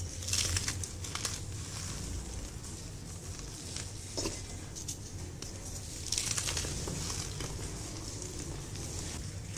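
Reformed gym chalk blocks crushed and crumbled in bare hands into powder: gritty, crackly crunching. There are louder crunches about half a second in and again around six seconds in.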